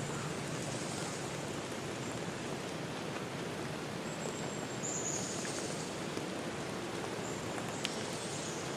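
Forest ambience: a steady rushing hiss with a few short, high-pitched bird calls about halfway through and again near the end, and a single faint click shortly before the end.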